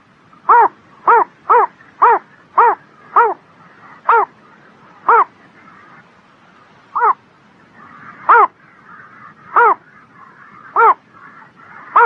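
An animal's short, clear, pitched call repeated in a series: about two calls a second at first, slowing to roughly one a second after about three seconds, with a longer pause around six seconds in.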